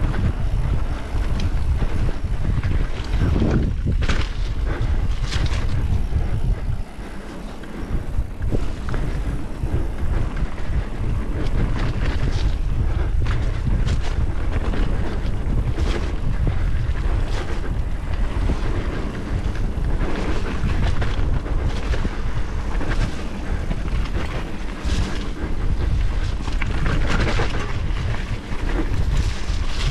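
Wind buffeting the microphone of a mountain biker's camera while riding a trail, with the bike's tyres and frame knocking and rattling over bumps throughout. The rush eases briefly about seven seconds in.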